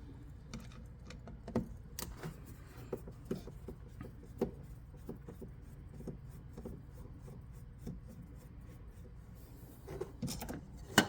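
Phillips screwdriver backing out a small screw that holds a swamp cooler pump: faint, irregular clicks and scrapes of the driver in the screw head and plastic, with a sharper click just before the end.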